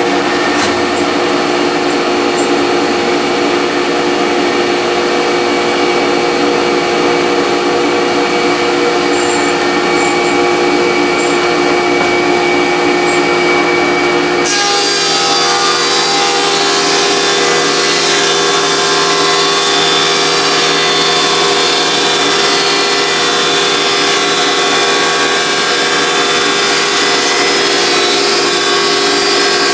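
Delta DC-380 15-inch thickness planer, fitted with a Shelix helical cutter head, running loud and steady while planing an oak plank. It has a steady whine, and about halfway through the sound turns abruptly hissier. The helical head measures about 90 dB under these conditions.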